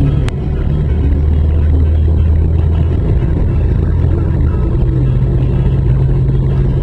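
Car driving along a street, heard from inside the cabin: a steady low engine and road drone, with one sharp click just after the start.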